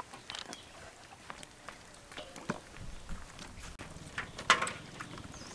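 Raw chicken wings being turned and pressed in a metal basin of flour: soft rustling and scattered light taps, with one louder knock about four and a half seconds in.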